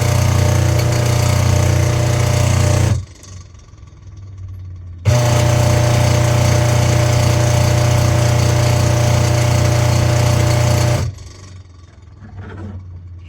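Washing machine wash motor running with a loud, steady buzzing hum. It stops about three seconds in, starts again two seconds later and stops again near the end. The noise comes from the motor's worn bearing, and the motor spins free because the drive belt is broken, so the pulsator does not turn.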